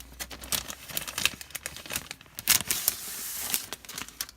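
Plastic packaging crinkling and rustling as it is handled, in a run of quick crackles with a longer rustle about three seconds in.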